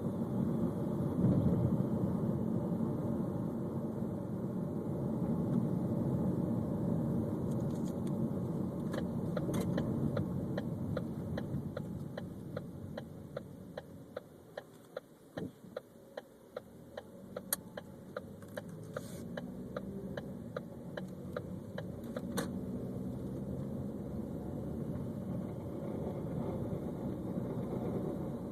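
2013 Ford Focus heard from inside while driving: steady engine and road noise that fades as the car slows about halfway through, then builds again as it pulls away. A regular ticking, about two a second, runs through the slow stretch.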